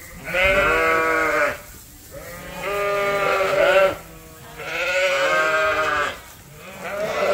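Sheep bleating: three long, wavering bleats about a second apart, with a fourth starting near the end.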